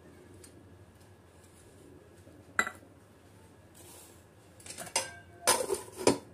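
Steel utensils clinking: a metal spoon and steel bowls knocking together. One sharp clink comes about two and a half seconds in, then a cluster of louder clinks and knocks near the end.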